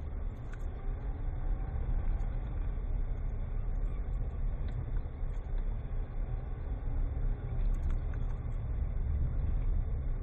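Vehicle engine and low rumble heard from inside the cab while driving slowly over a rough grass track, picked up by a dashcam microphone, with the engine pitch drifting gently up and down.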